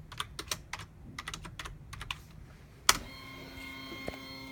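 Computer keyboard typing, a quick run of key clicks, then one loud click about three seconds in. After it the stepper motors of a TinyG-driven gantry start up with a steady whine as the machine begins homing its X and Y axes.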